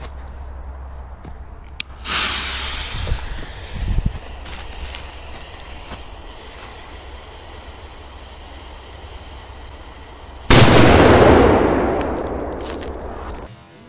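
A firecracker blast inside a coffee machine about ten seconds in, sudden and very loud, dying away over about three seconds. Earlier there is a burst of hissing about two seconds in and a few knocks.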